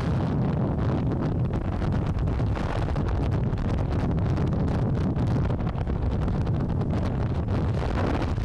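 Steady wind rush on the microphone of a camera mounted on a Vespa GTS 300 scooter at road speed, with the scooter's running and tyre noise beneath it.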